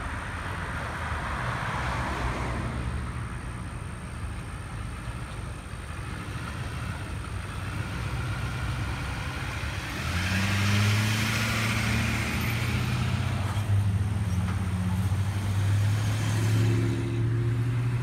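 Pickup trucks towing loaded trailers driving slowly past, with engines running and tyres on pavement. A truck's engine hum grows louder about ten seconds in and stays steady, and a passing car hisses by near the start and again about eleven seconds in.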